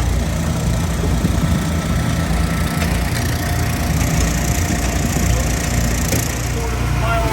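Engine-driven hydraulic log splitter running steadily, with wood cracking and splintering as logs are split.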